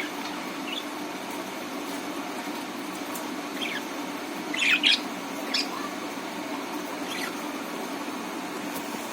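Budgerigars giving short, scattered chirps, the loudest pair about halfway through, over a steady low background hum.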